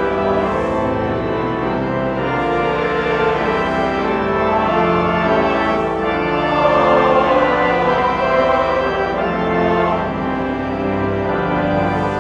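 Pipe organ playing held chords that shift from one to the next.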